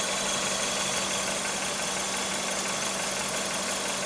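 2003 Honda CR-V engine idling steadily with the air-conditioning compressor running.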